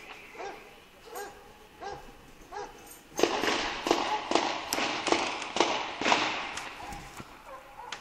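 A dog barking over and over, fainter barks about every three-quarters of a second at first, then louder, quicker barks, two or three a second, from about three seconds in, tailing off near the end.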